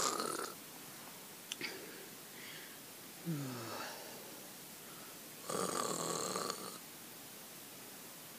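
A person imitating snoring: one snore ends about half a second in and a second long snore comes about five and a half seconds in, with a short falling vocal sound between them.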